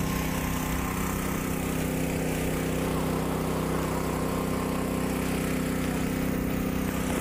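An engine running steadily at a constant speed, a continuous low hum that neither rises nor falls.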